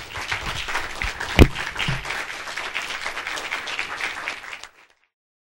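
Audience applauding, with a single sharp thump about a second and a half in; the applause cuts off abruptly near the end.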